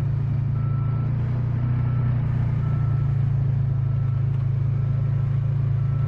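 Vehicle engine and road rumble heard from inside the cab as it drives slowly over a dirt construction road: a loud, steady low drone. Over it, a faint high beep repeats about once a second.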